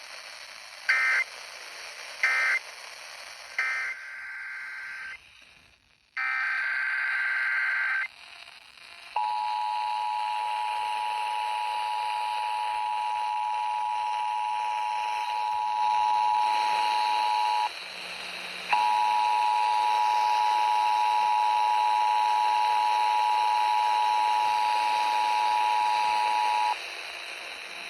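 Emergency Alert System tones over radio. First three short bursts of screeching digital data, the end-of-message code closing the flash flood warning. Then a longer data burst, the header of the next alert. Then the two-tone EAS attention signal, held steady for about eight seconds, broken off for a moment, and sounded again for about eight seconds more.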